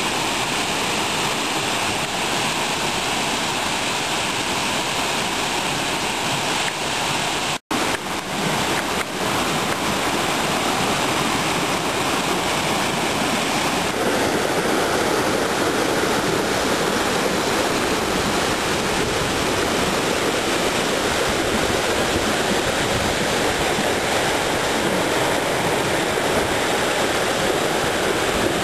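Steady rush of a tall waterfall, water falling 50 to 75 feet onto rock and pool. The sound cuts out briefly about eight seconds in, and from about halfway it turns a little lower and fuller.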